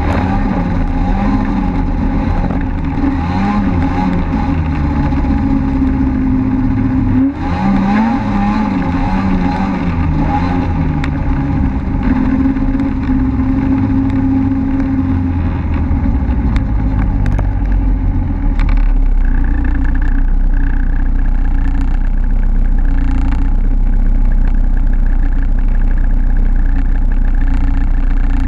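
Snowmobile engine running while riding, its pitch rising and falling with the throttle for the first ten seconds or so, then holding steadier and a little louder from about two-thirds through.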